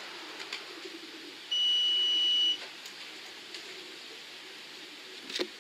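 Single electronic beep from a pigeon-racing electronic clock: one steady high tone about a second long, signalling that a returning racing pigeon's ring has been registered at the loft.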